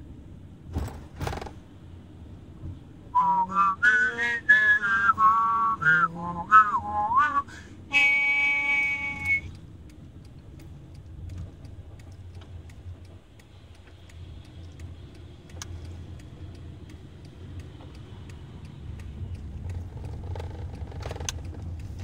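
A person whistling a short wavering tune for a few seconds inside a moving car, followed by a single held note about eight seconds in. After that only the car's steady low road rumble remains.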